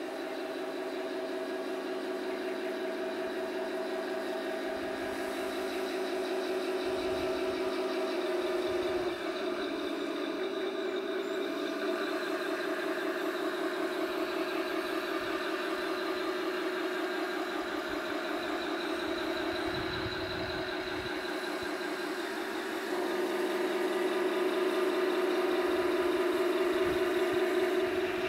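Simulated tank engine sound from the onboard sound unit of a Tamiya 1/16 full-option RC Tiger I, played through its small speaker while the model drives. It is a steady engine hum that changes pitch a few times and grows louder near the end.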